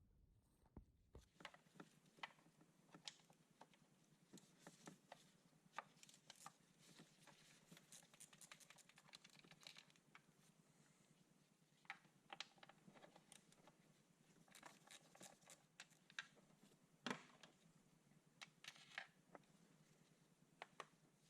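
Near silence with faint, scattered clicks, taps and scrapes of hand tools and parts being handled, and one sharper knock late on.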